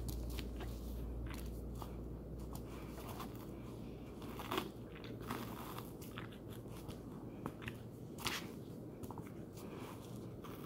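Bernese mountain dog chewing and gnawing a tennis ball, irregular crunches and clicks of teeth on the ball as it tears at the felt cover; the sharpest crunches come about four and a half and eight seconds in.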